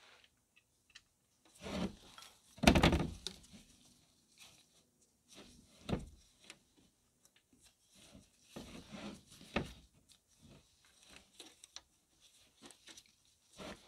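Irregular scraping, rubbing and knocking of a gloved hand and tool working against engine parts in a cramped space around the auxiliary belt tensioner bolt. The loudest knock comes about three seconds in.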